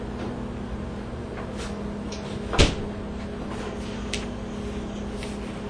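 A single sharp knock about two and a half seconds in, with a few faint ticks before and after, over a steady low room hum.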